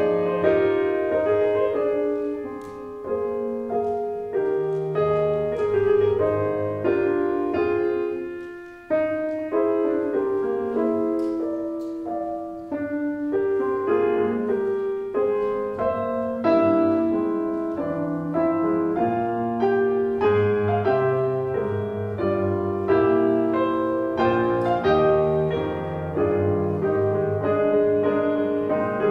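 Solo piano playing a continuous stream of overlapping notes and chords, mostly in the middle register. About nine seconds in the sound briefly dies away, then resumes with a sharp new attack.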